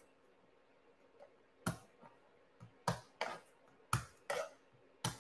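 A kitchen knife cutting garlic cloves on a cutting board: six or seven sharp, short knocks of the blade on the board at an uneven pace, starting about a second and a half in.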